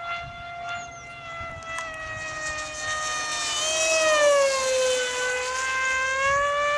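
Electric RC flying wing (Ritewing Drak) at full throttle, its motor and propeller making a high, steady whine. The pitch sinks about four seconds in and then climbs a little again.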